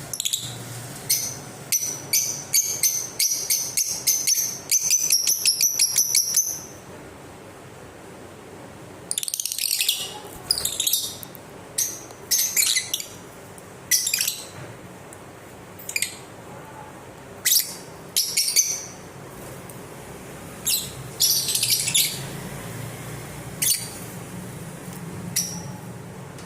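Lovebirds chirping: a fast run of high chirps for the first six seconds or so, then, after a short lull, scattered sharp calls and chirps.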